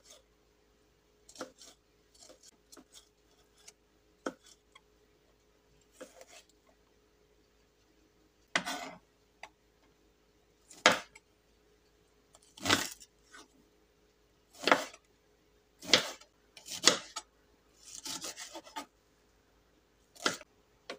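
Chef's knife chopping a shallot on a wooden cutting board: irregular knocks of the blade on the wood, sparse at first, then closer together and louder in the second half.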